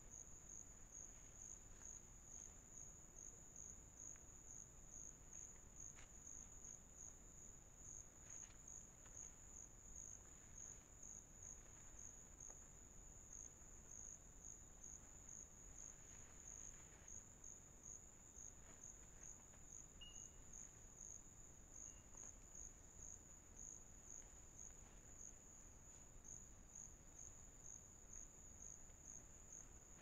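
Faint insects chirring in a steady, evenly pulsing high trill, with a few faint ticks.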